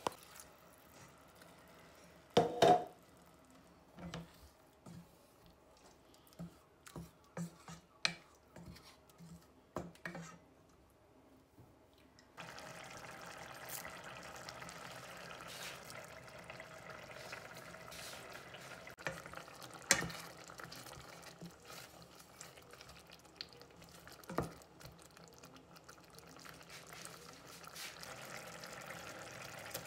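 Granite mortar and pestle knocking and clinking, stone on stone, with one loud clatter about two seconds in and softer taps after. Then, from about twelve seconds in, a saucepan of chilli sambal sauce simmering with a steady hiss, broken by a few sharp knocks.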